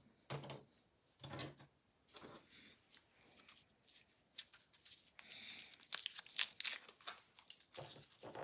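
Faint tearing and crinkling of packaging, with scattered sharp clicks and handling noises, busiest near the end.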